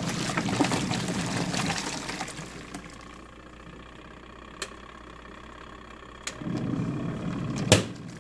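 Twin tub washing machine's wash tub churning water, falling quiet about three seconds in and starting again a few seconds later. A sharp knock comes near the end.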